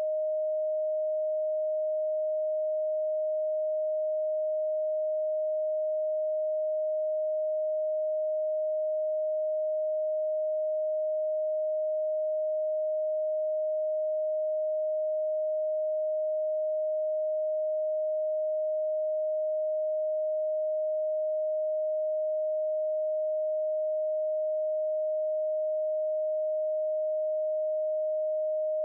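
A single pure sine tone, one of the Rife frequencies played from audio software, held steady at one mid-range pitch with no change in pitch or loudness.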